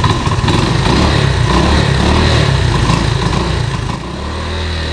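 Honda 125M three-wheeler's single-cylinder four-stroke engine running, then weakening about four seconds in as it starts to die: the fuel valve is shut off, so it is running out of fuel.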